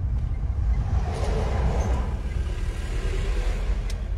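Steady low rumble of a car driving along a road, heard from inside the cabin, with a swell of noise about a second in as an oncoming vehicle passes. A light click near the end.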